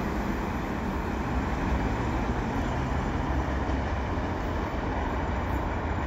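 Steady rumble of a heavy freight train's cars rolling along the rails as the end of the train moves away.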